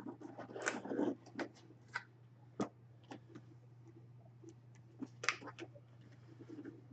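Hands opening and handling cardboard and plastic packaging: a run of irregular rustles, scrapes and clicks, busiest in the first second or so, with a sharp click about five seconds in. A steady low electrical hum runs underneath.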